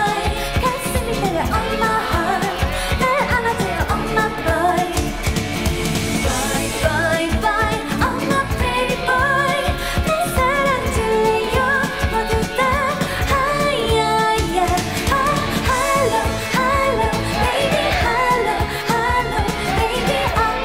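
A K-pop song with sung vocals over a full backing track with a steady beat.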